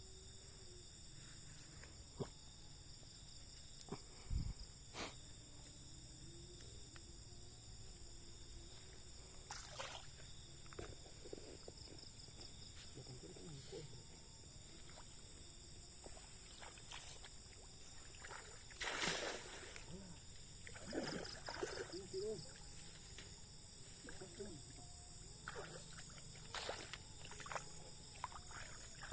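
Steady high-pitched chorus of night insects, with scattered knocks and short noisy bursts. The loudest burst comes about two-thirds of the way through.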